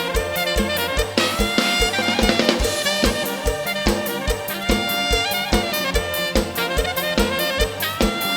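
Live mor lam band playing an instrumental passage without vocals: a drum kit keeps a steady kick-drum beat under pitched instruments.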